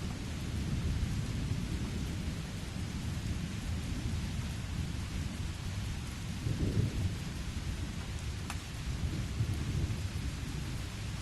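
Steady rain with low, rolling thunder rumbling underneath, swelling briefly about two-thirds of the way through.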